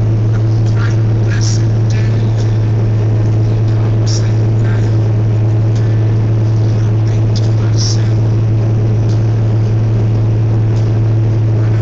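Caterpillar Challenger MT875 tracked tractor's diesel engine running at a steady, unchanging pitch under load as it pulls a loaded land-leveling scraper through sand, heard from the cab. Faint rattles sound over the drone.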